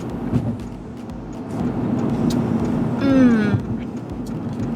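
Steady road noise inside a moving car's cabin, with a woman's short drawn-out "mmm" about three seconds in, falling in pitch: a suggestive moan made while sipping a drink.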